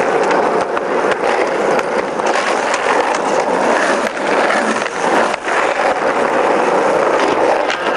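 Skateboard wheels rolling over rough asphalt: a loud, steady gritty rumble, with a few sharp clacks of the board.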